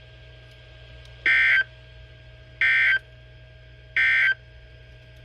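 NOAA Weather Radio SAME digital data bursts: three short, identical buzzy bursts about 1.3 s apart, the end-of-message code that closes an alert broadcast. A low steady hum runs underneath.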